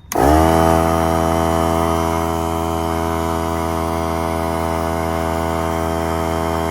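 Small Harbor Freight pancake air compressor kicking on and running with a steady, loud hum, its motor and pump filling the tank toward full operating pressure.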